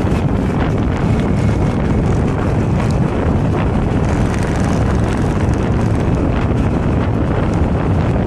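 Steady wind buffeting on the microphone of a motorcycle-mounted camera at road speed, with the motorcycle's engine running underneath.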